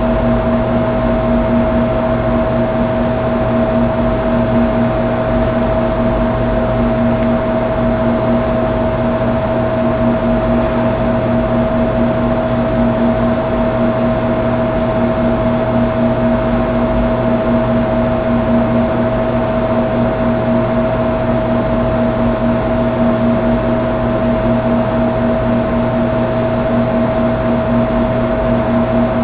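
A steady, unchanging machine-like hum: constant tones over a hiss, with no breaks or separate events.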